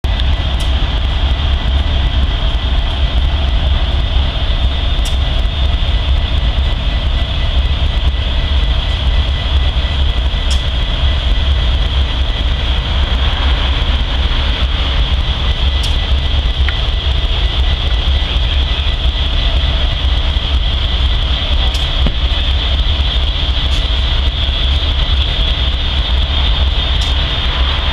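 Steady low rumble of a stopped diesel locomotive idling, with a steady high-pitched drone above it.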